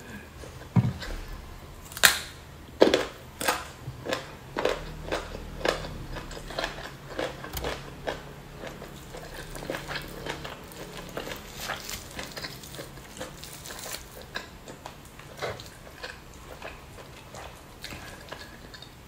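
Close-miked eating of spicy duck meat with rice: chewing, wet mouth smacks and clicks, with the sharpest smacks about two and three seconds in and a quick run of them that thins out in the last few seconds.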